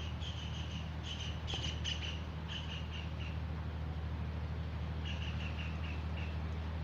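Bird chirping in short runs of quick high notes, several times, over a steady low room hum.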